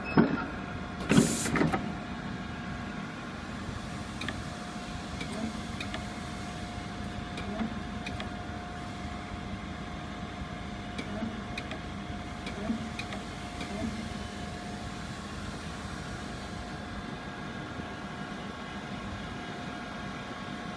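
Automatic button-feeding sewing machine powered up and running with a steady hum. Two loud mechanical clunks come within the first two seconds, then light clicks now and then.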